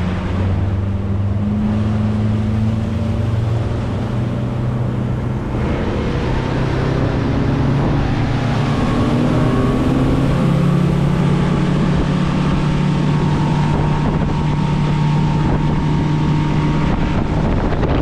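A boat's outboard motor running under way. Its pitch climbs about a third of the way through as it speeds up, then holds steady, with wind buffeting the microphone.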